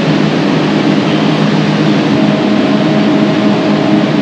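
Industrial air compressor running with a loud, steady drone made of several low hum tones; a faint steady higher tone joins about halfway through.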